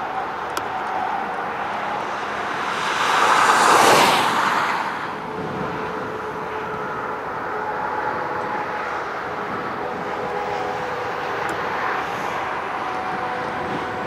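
Distant jet airliner engines rumbling with a faint steady whine over constant noise from the strong wind. About three to five seconds in, a louder whooshing swell rises and falls.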